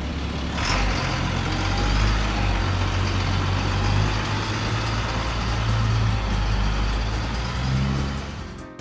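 Truck engine running with a steady low rumble. It gets louder about half a second in and fades out near the end.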